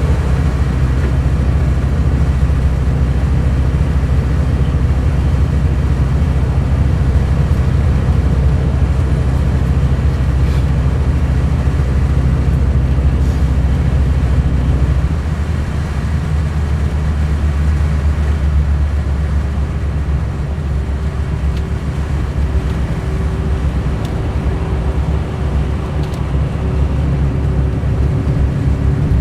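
Mercedes-Benz O500 RSD coach's Euro 5 BlueTec diesel engine running with a steady low drone; about halfway through its note shifts and becomes a little quieter, then runs on.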